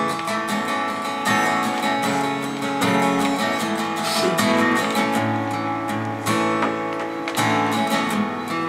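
Acoustic guitar strumming chords at a slow ballad pace, an instrumental stretch with no singing.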